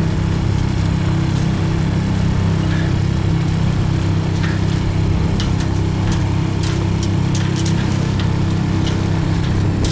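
Honda 5 hp four-stroke outboard motor running steadily under way, pushing the small yacht through the water.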